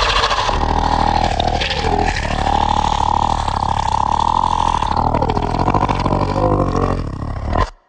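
Monster roar sound effect: one long, rough, growling roar whose pitch dips twice, about two and five seconds in, then cuts off suddenly near the end.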